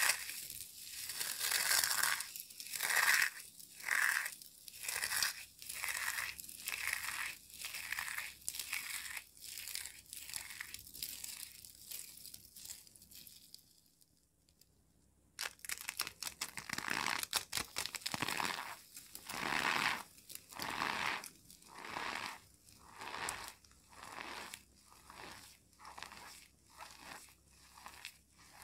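Dry, brittle soap pieces crushed and crumbled in the hands: a rhythmic run of crunches, about two a second. The crunching fades to a short silence about halfway, then starts again.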